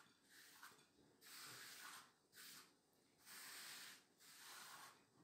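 Faint, soft rubbing in several separate strokes: hands sweeping fresh spinach farfalle across a floured wooden pastry board onto a plate.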